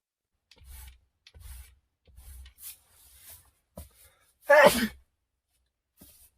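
A person sneezes: several short, soft breathy sounds, then one loud, sharp sneeze about four and a half seconds in, its voice falling in pitch.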